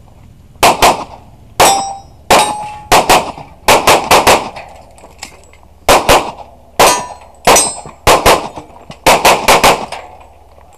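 A handgun fired rapidly in quick strings of two to four shots, about twenty in all. Some hits are followed by the brief ringing clang of steel targets. About four seconds in, the shooting stops for about a second and a half, then resumes.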